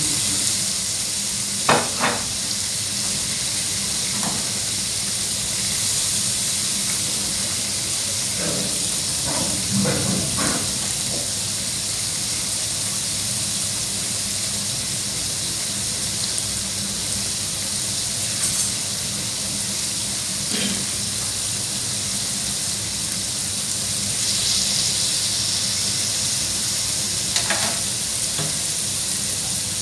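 Marinated queen fish fillets sizzling steadily on a hot ridged grill pan, with a few short clicks and taps scattered through.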